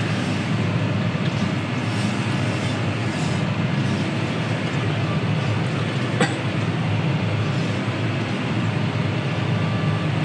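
Steady drone of a John Deere tractor engine heard from inside the cab while working, with one sharp click about six seconds in.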